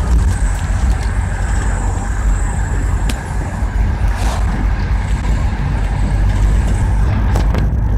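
Steady low rumble of a moving car heard from inside the cabin: engine and road noise, with a few light clicks.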